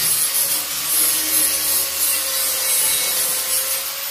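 Handheld angle grinder running steadily against the steel frame of a deer stand seat, grinding the metal with a harsh, high-pitched rasp over a steady motor whine.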